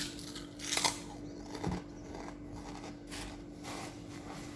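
Chicharon (fried pork rinds) crunching as they are chewed, with a few scattered crunches over a steady low hum.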